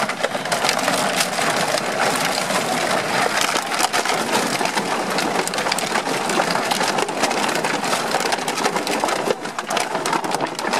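A pile of empty plastic bottles crackling and crunching continuously as puppies and people walk over them.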